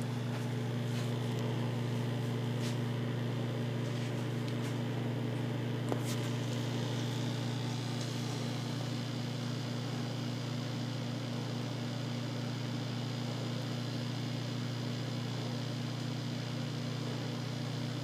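Sanyo microwave oven running, a steady low electrical hum.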